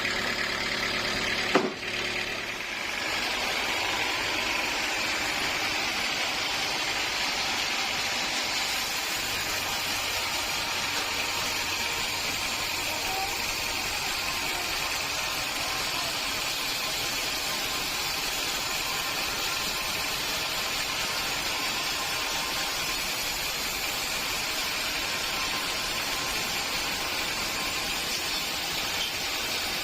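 Sawmill machinery running steadily with an even, hissing mechanical noise, with one sharp knock about a second and a half in.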